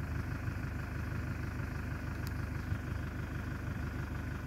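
Vehicle engine idling steadily, a low even rumble with a regular pulse.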